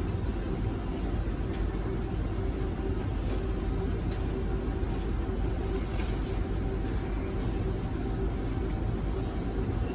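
Steady hum and hiss inside a Kawasaki & CRRC Sifang C151C metro car standing at a platform with its doors open, its onboard equipment running at rest, with a faint steady whine.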